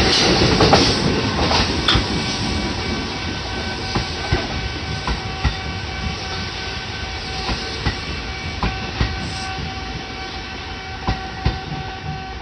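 A Kintetsu train running over a level crossing, its wheels clicking in pairs over the rail joints and fading as it moves away, while the crossing's electronic warning bell keeps ringing.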